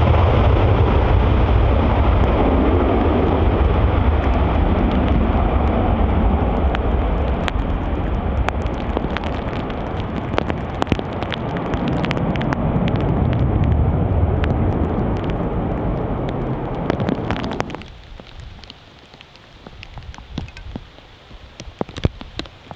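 Airbus A330 jet engines at full takeoff power: a loud, steady low rumble with sharp crackles as the airliner rolls and climbs away. About 18 seconds in, the sound cuts abruptly to much quieter steady rain with scattered drop ticks.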